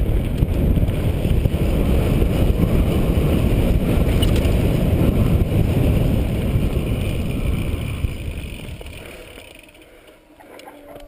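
Wind rushing over a helmet-mounted camera's microphone and tyre rumble from a Santa Cruz Nomad mountain bike rolling down a dirt trail. The noise dies away between about eight and ten seconds in as the bike slows.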